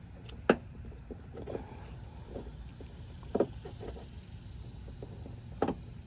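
Flathead screwdrivers working at plastic retaining clips: three sharp clicks, about half a second in, a little past the middle and near the end, with fainter knocks between them over a low steady rumble.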